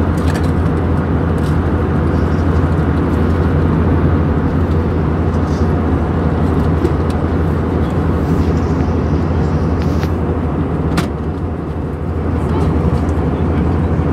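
Airbus A319 cabin noise heard from a window seat in flight: the steady, deep drone of the wing-mounted jet engine and rushing airflow. It dips briefly about eleven seconds in, then returns to the same level.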